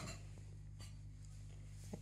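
Faint rustling of hands and clothing as a cat is held on a lap, with a short rustle right at the start, over a steady low hum.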